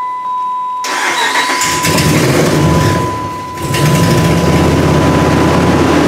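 2006 Dodge Ram's 5.7 L Hemi V8 cranking about a second in, catching and settling into a steady run, now that the ABS module's missing power fuse has been fitted. A steady high-pitched tone sounds throughout.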